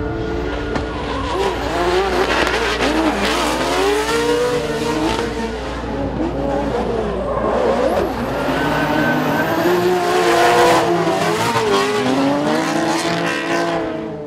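V8 drift car being driven sideways, the engine revving up and down again and again over squealing tyres.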